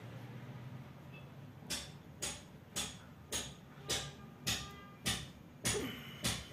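Steady, evenly spaced ticking, a little under two sharp ticks a second, starting about a second and a half in, each tick followed by a short ring.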